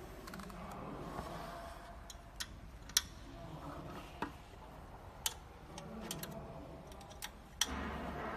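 Irregular sharp metal clicks and taps, about ten in all, as a metal hex key is fitted to screws and turns them loose inside an aluminium carriage frame.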